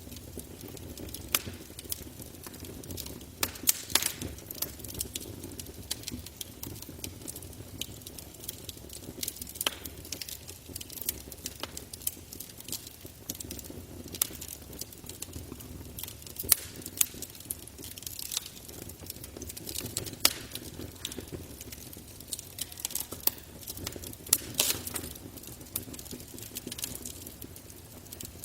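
Campfire burning, with irregular sharp crackles and pops over a low, steady rush of flame.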